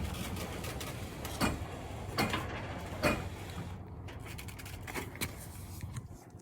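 Overhead garage door being lifted by hand: a steady rumble from the door moving in its tracks, with several clunks.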